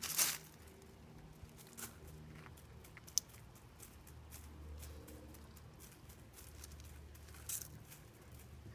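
A dog's front paws stomping and scuffing in a shrub and gravel: scattered rustles and crunches, the loudest just at the start, a sharp click about three seconds in and another rustle about seven and a half seconds in, over a steady low hum.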